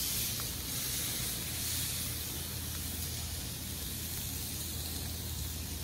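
Two ribeye steaks searing on hot grill grates, giving a steady sizzle.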